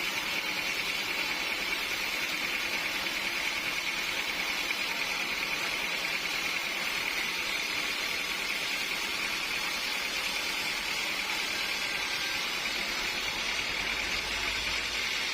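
Sawmill machinery running steadily, a constant mechanical noise with no breaks or changes.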